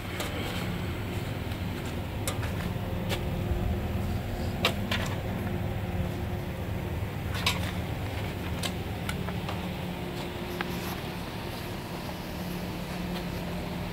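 A steady low mechanical hum with a few faint steady tones, broken by scattered light clicks.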